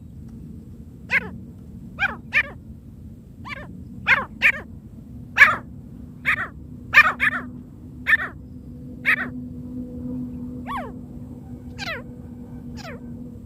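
Francolin (teetar) calling: a series of short, sharp notes, each sliding steeply down in pitch, repeated irregularly about one or two a second, some in quick pairs. A faint steady hum runs underneath.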